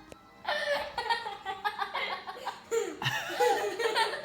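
People laughing, starting about half a second in and running on in repeated bursts.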